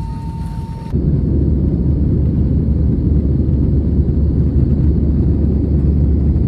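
Steady low rumble of an airliner's jet engines and rushing air heard inside the passenger cabin, jumping louder about a second in.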